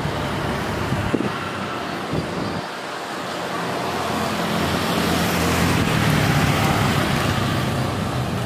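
Airbus A350-941 jet airliner's engines, a steady rumble as it rolls along the runway, growing louder from about a third of the way in.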